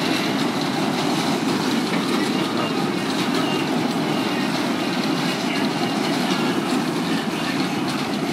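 A spinning carnival ride running, its cars going round with a steady rumbling clatter.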